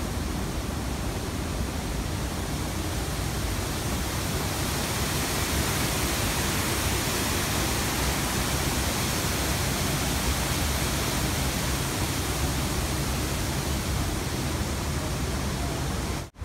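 Steady rushing noise, even from a low rumble up to a high hiss, that cuts out abruptly near the end.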